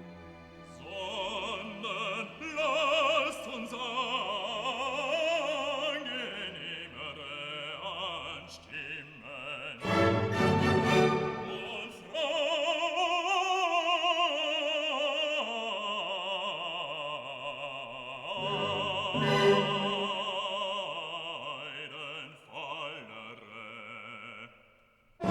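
Background music: an operatic voice singing long held notes with vibrato over orchestral accompaniment.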